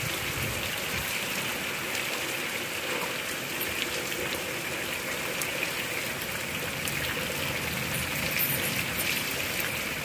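Steady rain falling into standing floodwater and onto wet brick paving, an even hiss of drops.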